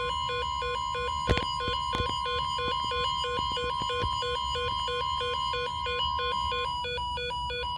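NOAA Weather Radio warning alarm tone, a steady single tone around 1 kHz, with a second receiver's alert beeping over it about four times a second: the alert for an incoming tornado warning. A few sharp clicks, the loudest about a second in.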